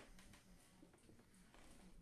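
Near silence: faint room tone with a few small ticks.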